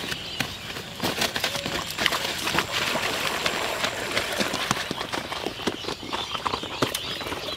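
Splashing footsteps of a person wading fast through knee-deep pond water, a quick, uneven run of splashes.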